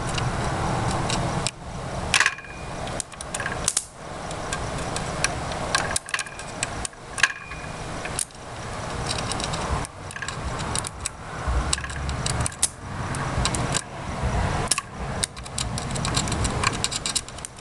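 Arcing from a shorted 13.8 V, 23 A power supply lead as it is touched and dragged across motherboard components: irregular crackling and sharp snaps, with a short high-pitched tone a few times.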